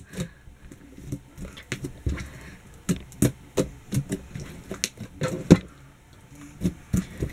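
Slime being pressed and pulled by hand against a tabletop, making irregular sharp clicks and pops a few times a second.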